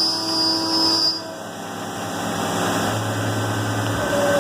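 CNC mill cutting with a carbide three-flute end mill under flood coolant: a steady high whine with a lower tone beneath it stops about a second in, and the spindle and coolant run on with a steady low hum.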